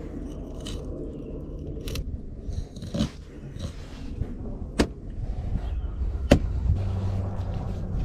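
Small cleaver blade scraping and tapping on a plastic cutting board while a flounder is filleted, with a few sharp clicks scattered through, over a low steady hum.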